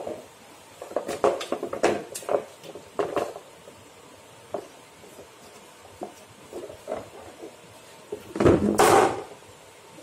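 Upturned plastic tub scraping and knocking on a marble floor and against a wooden table leg in a string of short bursts, with a longer, louder scrape near the end.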